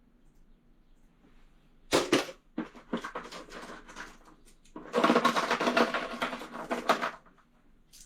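Loose metal sockets clattering as they are rummaged and sorted: a sharp clack about two seconds in, then irregular jangling, densest for about two seconds past the middle.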